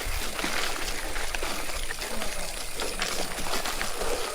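Giant Fathom hardtail mountain bike rolling over a rough dirt trail: a steady run of clicks and rattles from the bike and tyres, with low wind rumble on a chest-mounted action camera.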